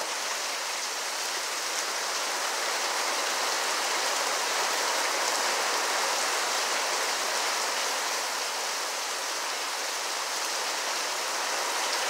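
Heavy rain pouring steadily in a storm, an even hiss of downpour.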